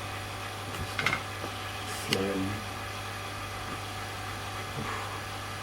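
Steady low mechanical hum, with two short clicks about one and two seconds in.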